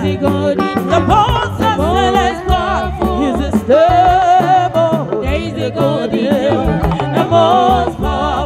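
Live band music with women singing into microphones, their voices held in long notes with vibrato, over keyboard, drum kit and a steady low bass line.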